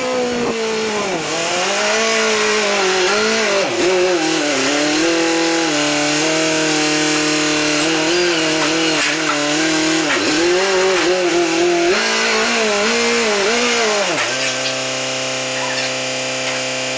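Telehandler engine revving up and down as the boom and hay grapple swing a load of bales into the loft, then settling to a steady, lower idle about 14 seconds in.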